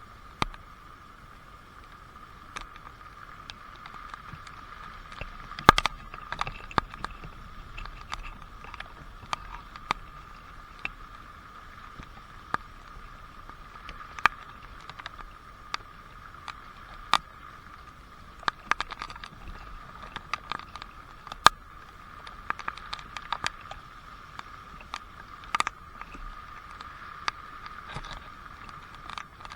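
Rain and dripping water: a steady hiss with water drops landing as irregular sharp taps, sometimes singly and sometimes in quick clusters.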